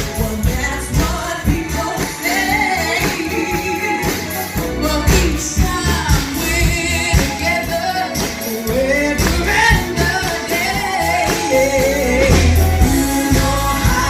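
Live band music with singing: sung voices over a steady drum beat and bass.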